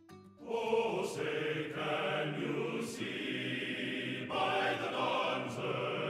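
Background music: a sustained choir-like chanting vocal texture swells in about half a second in.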